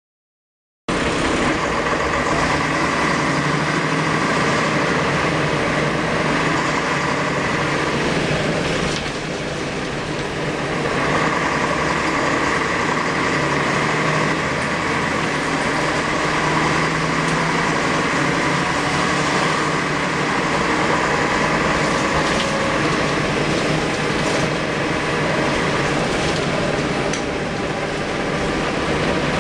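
Mercedes-Benz O405 city bus engine running, heard from inside the passenger cabin, with its W3E three-speed automatic gearbox very quiet. The sound cuts in about a second in, eases off for a couple of seconds around the nine-second mark, then picks up again.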